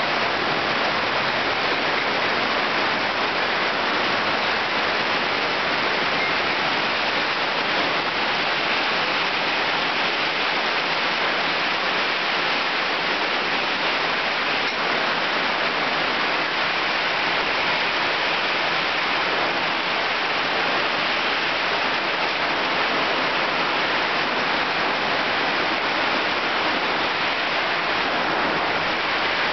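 Heavy rain pouring down in a rainstorm: a loud, dense, steady hiss that never lets up.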